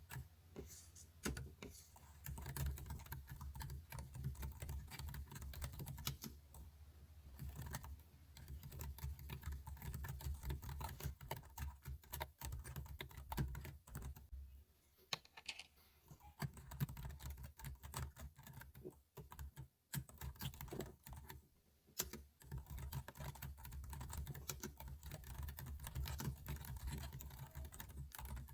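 Computer keyboard keys clicking in irregular runs, with a couple of short lulls around the middle.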